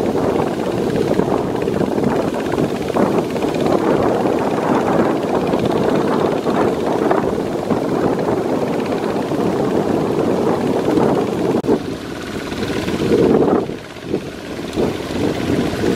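Kubota RT140 single-cylinder diesel engine of a walking tractor running steadily under load, mixed with the cage wheels churning and splashing through flooded paddy mud. The sound drops in level briefly near the end.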